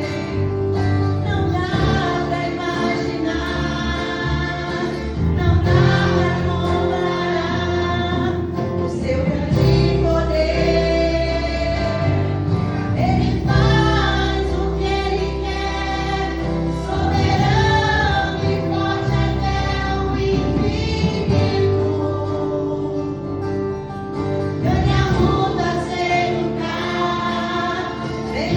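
Gospel worship song: a group of voices singing together over instrumental accompaniment with sustained bass notes.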